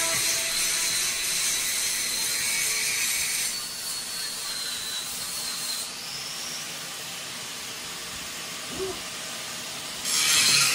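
Angle grinders grinding on a steel car chassis frame to clean it up: a steady, high hissing grind with a thin whine. It eases off about six seconds in and picks up again near the end.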